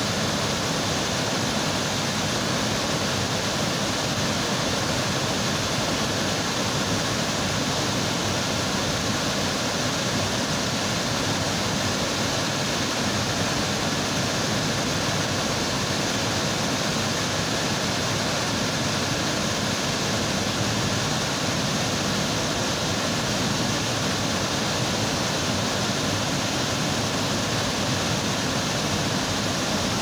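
Burney Falls, a tall waterfall pouring in several streams into its plunge pool, makes a steady, unbroken rush of falling water.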